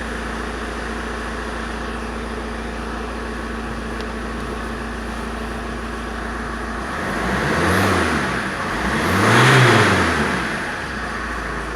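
Alfa Romeo 156 1.9 JTDm four-cylinder turbodiesel idling steadily, then revved up briefly twice a little past the middle before settling back to idle. It has a strange tick-tock noise whose source the owner cannot place.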